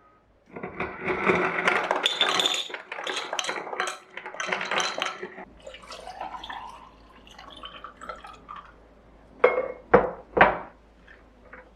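Dishes and utensils clinking and clattering for several seconds, then three sharp knocks about half a second apart near the end.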